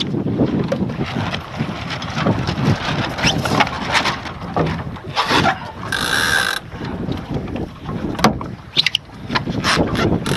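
Finn dinghy under sail: water rushing along the hull and wind on the microphone, with ropes and fittings knocking and clicking. About six seconds in, a half-second rasp as a line is pulled through a block.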